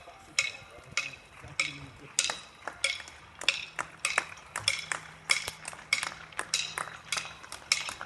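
A metal pot or pan being banged repeatedly with a utensil, each strike ringing briefly. About two strikes a second at first, coming faster and less evenly from about three seconds in.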